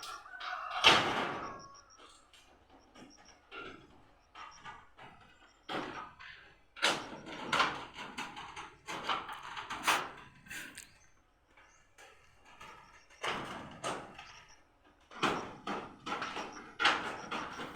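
Irregular knocks and bangs of house repair work, struck at uneven intervals with short pauses between, some with a brief ring after.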